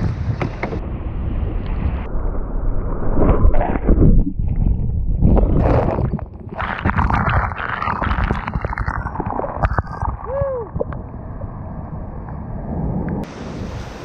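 Rushing whitewater splashing around a kayak as it paddles down and plunges through the foam below a waterfall, with wind buffeting the microphone. It sounds muffled for most of the stretch and clearer again near the end.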